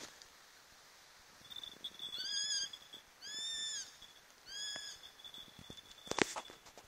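Eurasian sparrowhawk calling: three drawn-out whistled calls about a second apart, each rising and then falling in pitch. A sharp knock comes near the end.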